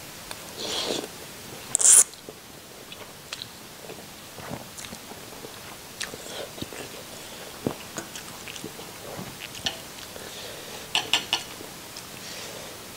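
Close-miked eating sounds: noodles slurped into the mouth about half a second in, ending in a sharp loud suck at about two seconds, then soft chewing clicks and mouth smacks, with a quick run of clicks near the end.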